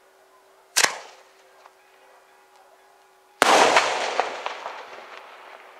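Daytime aerial firework shells bursting overhead. A sharp bang comes about a second in, then a louder bang a few seconds later, followed by crackling that dies away slowly.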